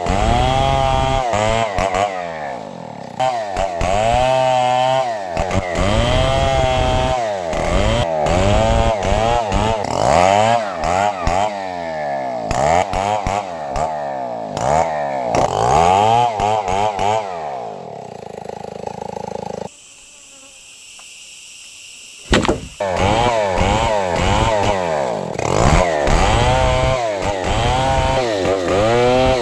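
Stihl 070 two-stroke chainsaw cutting wood, its engine pitch rising and falling over and over. About two-thirds through the sound drops much quieter for about three seconds, then a sharp click, and the saw picks back up.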